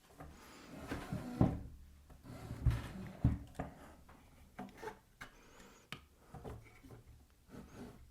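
Irregular wooden knocks and scraping as a drilled wood workpiece is handled and shifted at a bench pillar drill, with a few heavier thumps in the first half. The drill motor is not running.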